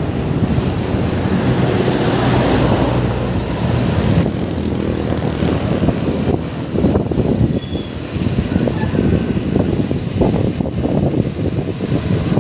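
Road noise heard from a moving bicycle: a motor vehicle's engine rumbles for the first few seconds, then wind gusts buffet the microphone.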